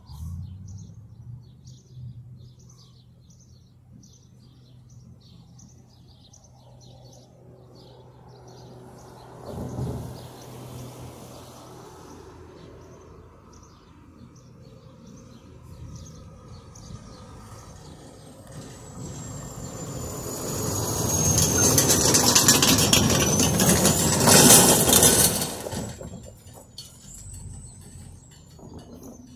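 Roadside ambience: small birds chirping in quick series over a steady low hum. A brief bump comes about ten seconds in, then a loud swell of noise builds for several seconds about two-thirds of the way through and falls away, with high whistled glides over it.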